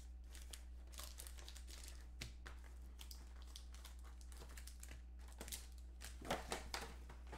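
Plastic wrapping on football trading-card packs crinkling and tearing in short crackles as the packs are opened by hand, with a louder flurry about six seconds in.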